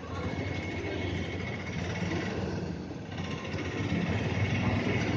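Steady low mechanical rumble, like an engine running.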